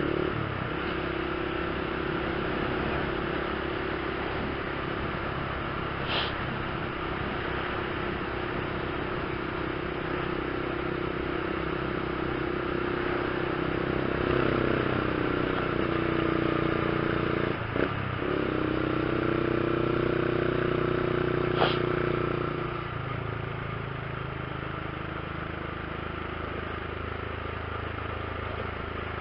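Honda CG 150 Fan ESDI's single-cylinder four-stroke engine running as the motorcycle rides along, with wind and road noise. The engine note shifts and dips briefly past the middle, and falls quieter near the end.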